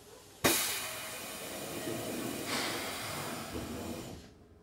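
Sudden loud hiss of compressed air let out from a Keikyu 1500 series train's air system. It keeps up for about four seconds with a second swell about halfway, then cuts off.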